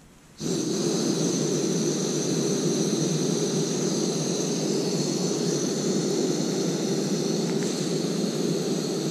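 Small upright gas canister stove lights about half a second in, and its burner then runs with a steady hiss, heating a pot of water to the boil.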